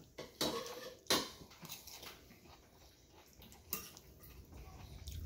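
Knife and fork clinking and scraping on a ceramic plate while gathering rice, beans and salad, with a few sharp clicks, the loudest about a second in.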